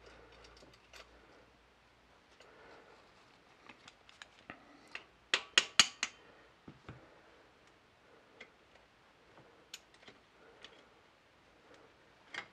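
Light metallic clicks and clinks of the bolt and aluminium sleeve being loosened and lifted out of a freshly fitted spark plug tube in the cylinder head, with a quick run of four sharp clinks about five and a half seconds in, the loudest.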